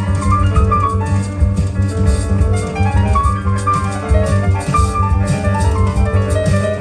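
Jazz piano trio playing: a running piano melody over double bass and drums.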